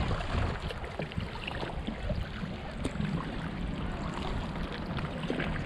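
Water lapping and small scattered splashes around a kayak being paddled, over a low steady rumble.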